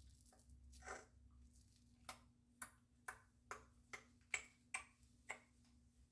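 A run of eight sharp, light clicks, about two a second, starting about two seconds in, after a softer click near the start.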